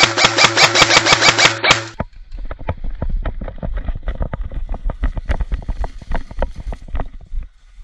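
Music with a steady beat that cuts off abruptly about two seconds in. It is followed by a quick, irregular run of thuds and light rattles over a low rumble: a player's footsteps on grass and his gear jostling as he moves fast.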